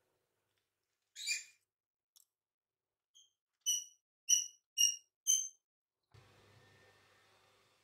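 A small bird chirping: five short, high, clear chirps about half a second apart, after a single brief rustle-like sound. A faint low hum starts near the end.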